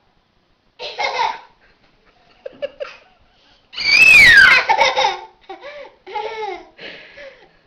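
A toddler laughing and squealing in short bursts, with a loud, high shriek about four seconds in that falls in pitch.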